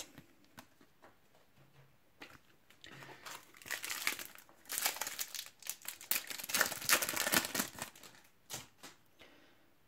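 Plastic wrapper of a Topps Match Attax trading-card pack crinkling and being torn open. It comes in as irregular crackling about three seconds in and stops shortly before the end.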